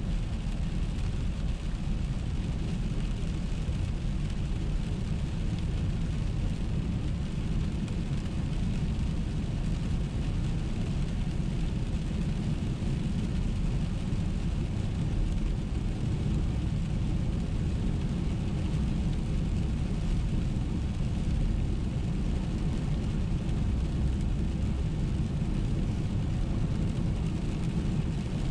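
Steady road noise inside a moving car on a wet road in the rain: a low rumble of engine and tyres under a hiss of tyres on wet pavement and rain on the windshield.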